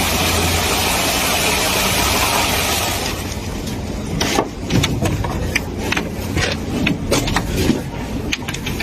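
Engine of construction machinery running with a steady low hum. A loud hiss for about the first three seconds gives way to irregular metal knocks and clanks.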